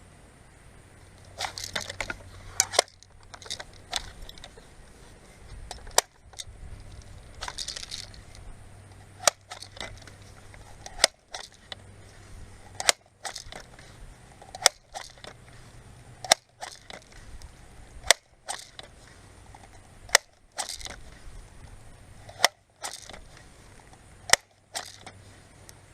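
Crosman 417 multi-pump .177 BB gun being pumped, about a dozen strokes, each ending in a sharp click roughly every one and a half to two seconds, with rustling of the pump lever between strokes. This is the gun being charged with air before the next shot.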